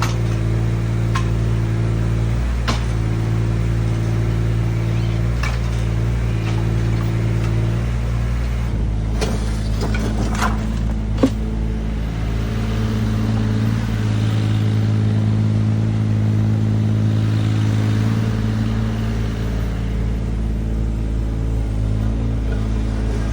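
Kobelco SK17SR mini excavator's diesel engine running steadily as the hydraulics work, its pitch stepping up and down as load changes. Scattered sharp knocks ride over it, the loudest a single clank about eleven seconds in.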